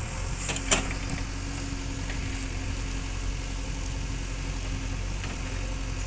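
JCB 3DX backhoe loader's diesel engine running steadily while the backhoe arm digs. A couple of sharp knocks come under a second in.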